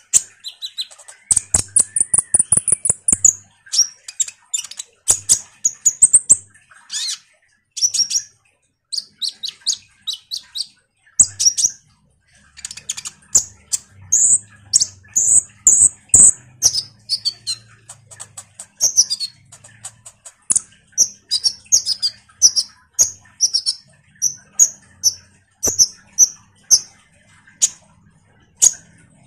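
Kolibri ninja sunbird singing in fast, high, chattering twitters and chirps, many short notes in quick runs with brief pauses. This is a lure recording meant to set other kolibri ninja singing. A faint low hum lies under the song from about halfway on.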